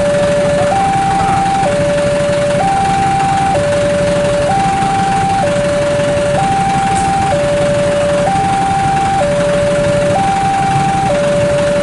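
Railway level-crossing warning alarm sounding with the barrier down: an electronic two-tone signal switching between a low and a slightly higher note about once a second, over a steady low rumble.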